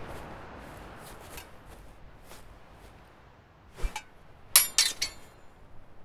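Steel swords clashing, metal on metal: one sharp strike just before four seconds in, then a quick flurry of three or four blows with a brief high ring.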